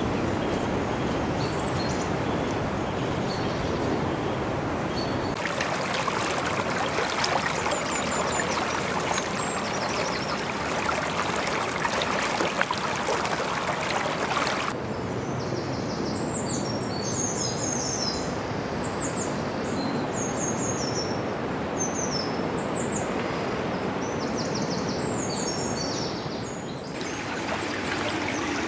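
Outdoor ambience from several joined clips: a steady rushing noise throughout, with birds singing in short repeated chirps through the middle stretch.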